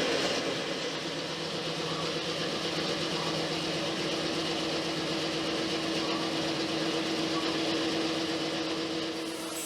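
DeWalt 3501 bandsaw running without cutting, a steady motor hum with a held tone, on its newly fitted replacement tyres.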